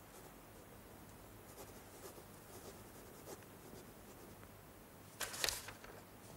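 Faint scratching of a pen writing on paper, in short strokes, with a brief louder rustle about five seconds in.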